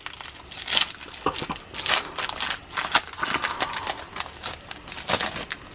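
Foil wrapper of a Panini Score football card pack being pulled open and handled: a run of irregular crinkles and crackles.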